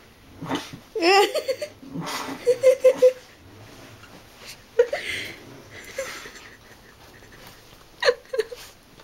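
A person laughing in short bursts, several times over, with a wavering squeal about a second in.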